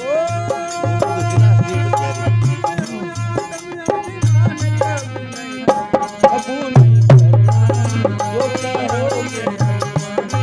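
Hindu devotional bhajan music: a held, gliding melodic line over a steady drum beat with a recurring deep bass note.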